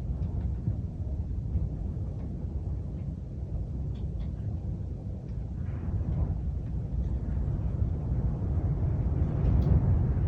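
Strong wind blowing in gusts with a low rumble, swelling to its strongest gust near the end, with a few faint ticks of rain among it.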